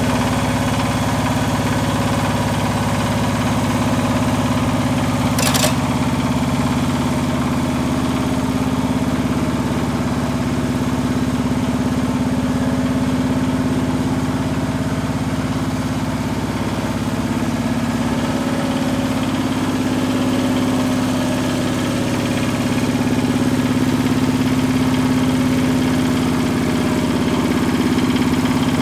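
Yanmar YC90-G walk-behind tiller's 9-horsepower diesel engine running steadily while the machine is driven along. A single sharp click about five seconds in.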